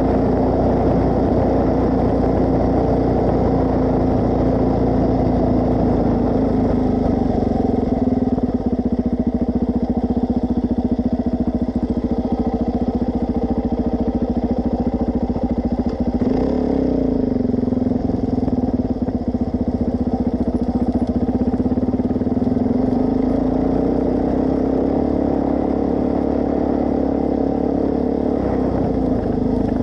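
Suzuki DR-Z400S single-cylinder four-stroke engine running steadily under way, with a brief drop in revs and pick-up again about halfway through.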